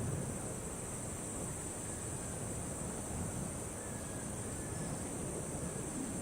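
Steady wildlife ambience with a constant high, even insect drone over a low background hiss.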